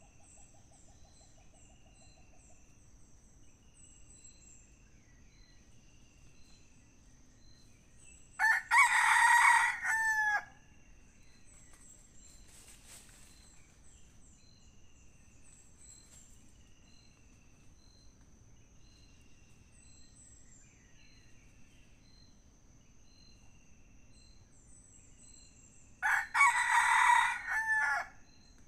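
Red junglefowl rooster crowing twice, each crow about two seconds long and cut off abruptly, some eighteen seconds apart. Between the crows, a faint steady high insect drone and a small chirp repeating about once a second.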